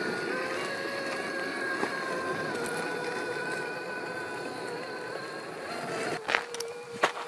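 Axial SCX6 1/6-scale RC crawler's electric motor and geared drivetrain whining steadily as it crawls slowly up a rocky trail, the whine wavering slightly in pitch with the load. Two sharp knocks near the end, from the truck striking rock.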